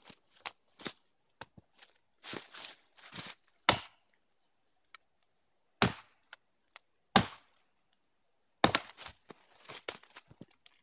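Axe chopping into a fallen log: four hard strikes a second or two apart, with lighter knocks and rustling between.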